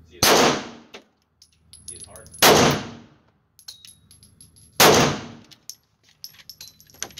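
Three shots from a Smith & Wesson M&P Shield Plus 9mm micro-compact pistol, spaced a little over two seconds apart in slow, deliberate fire, each ringing off the walls of an indoor range. A few light clicks follow near the end.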